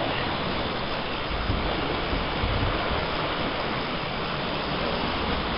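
Steady rush of white water pouring over river rapids.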